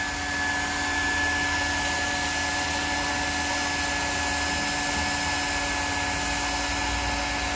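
Hot-air plastic welding gun running steadily, its blower hissing with a steady high whine, as it melts polypropylene welding rod into a plastic tank seam.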